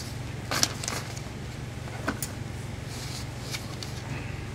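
Hands handling a mink-collared coat and its lining: a few short rustles and scuffs of fur and fabric being lifted and turned over, over a steady low hum.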